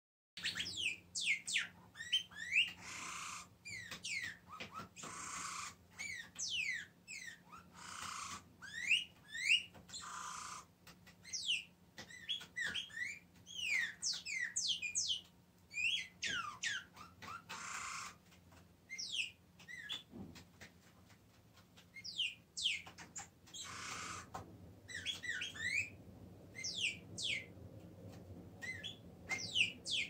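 A small pet songbird singing a long, fast twittering song of quick sweeping whistled notes, broken every few seconds by short harsh rasping notes.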